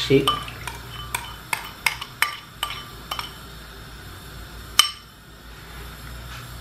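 Metal spoon scraping and clinking against a ceramic bowl as thick chili paste is scraped out into a pan of broth: irregular sharp clinks, with one louder clink near the end.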